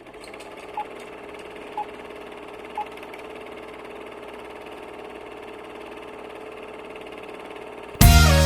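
Three short, pitched electronic beeps about a second apart over a faint steady hum, then loud music starts near the end.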